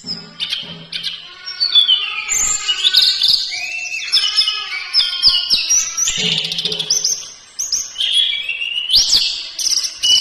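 A songbird singing a loud, continuous, varied song of whistled notes and glides, with rapid trills near the end.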